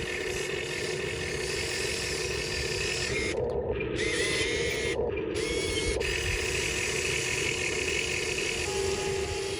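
A radio-controlled excavator's hydraulic pump and motors whirring steadily as a mechanical whine, the sound changing briefly about three and a half and five seconds in as the machine shifts its movement.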